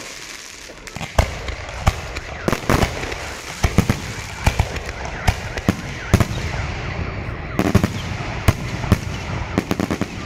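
Aerial firework shells bursting in an irregular series of about twenty sharp bangs, with a continuous crackle between them; the bangs come faster near the end.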